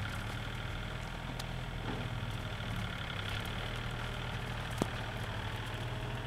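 A steady engine hum, as of a motor idling, with one sharp click nearly five seconds in.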